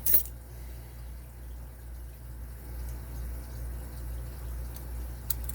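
A few small metallic clicks right at the start and one sharp click near the end as tools work the padlock's retaining clip, over a steady low hum.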